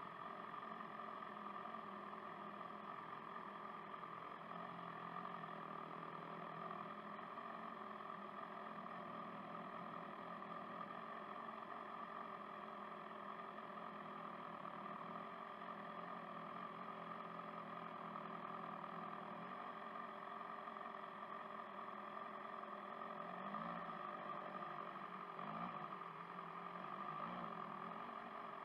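BMW S1000RR's inline-four engine running steadily at low revs while the bike creeps along at walking pace, with a few brief small rises in pitch near the end.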